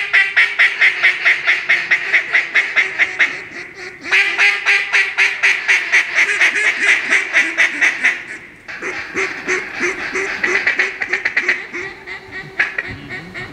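Duck call blown in a rapid, even stream of short notes, in three long runs that break about four and eight and a half seconds in, calling to ducks working overhead.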